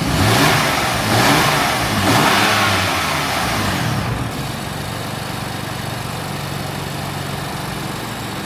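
BMW M4 twin-turbo straight-six, breathing through an open cold-air intake, blipped three times in quick succession with a rushing intake hiss on each rev, then settling back to a steady idle. Revved at a standstill like this, the turbos do not build boost, so the full intake sound does not come through.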